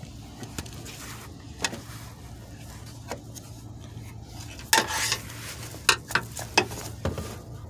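Metal hand tools being handled: scattered clinks, a short scrape a little before halfway through, and a quick run of clicks near the end, over a steady low hum.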